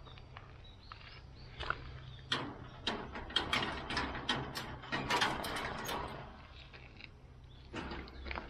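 Metal chain-link boar-fence gate being worked through by hand: latch and pipe-frame clanks and mesh rattling in a run of sharp clicks, busiest in the middle, with a few more clicks near the end as it is shut.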